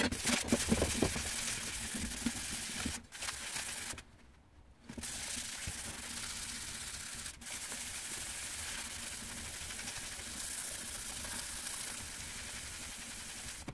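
Abrasive paper wrapped round a block rubbed by hand along a steel hedge knife blade to remove rust: a steady scratchy rubbing. It breaks off briefly about three seconds in and stops for about a second near the four-second mark.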